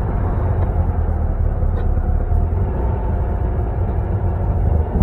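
A customized 1960 VW Beetle with a fuel-injected, performance-exhaust engine, heard from inside the cabin while driving: a steady low engine rumble mixed with road noise, dipping briefly just before the end.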